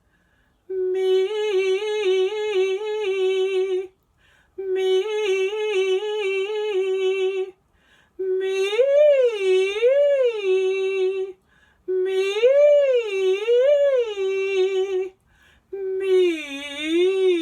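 A single voice humming vocal warm-up exercises: five phrases of about three seconds each. The first two hold one note with quick small pitch steps, the next two swoop up and down, and the last dips down and back up.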